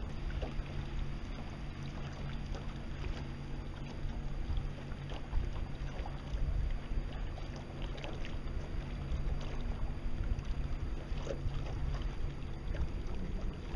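Water swishing and splashing against the hull of a Precision 18 sailboat under sail, in small irregular splashes over a steady low wind rumble.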